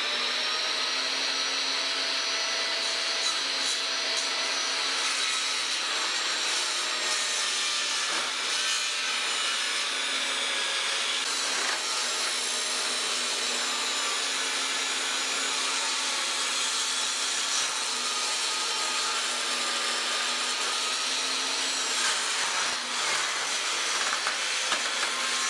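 Table saw running steadily and ripping a hardwood board at an angle, a continuous motor whine and cutting noise that starts suddenly.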